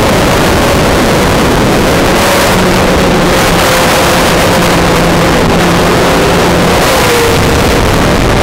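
Onboard audio from a small electric FPV drone in flight: its motors and propellers give a steady buzzing whine over a loud rush of air. The whine wavers with throttle and dips in pitch about seven seconds in.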